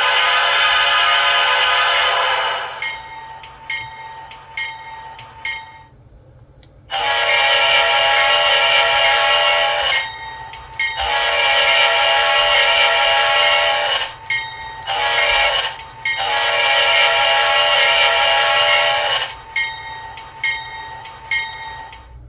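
Recorded locomotive air horns: the last sounding of a Nathan P5 five-chime horn stops about three seconds in. Then a Leslie RS5T horn sounds in two long blasts, one short and one long, the grade-crossing pattern.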